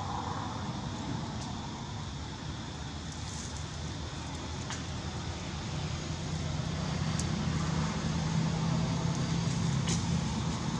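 A low, steady engine hum that grows louder about six seconds in, with a few faint ticks over it.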